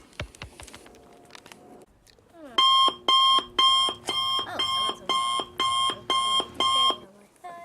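Electronic alarm beeping, about two beeps a second, starting about a third of the way in and running for some four seconds.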